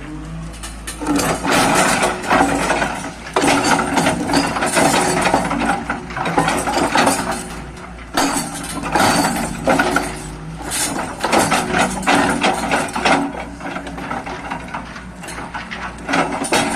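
Hydraulic breaker on a Hyundai 210 excavator hammering in bursts of a couple of seconds, over the machine's steady diesel engine.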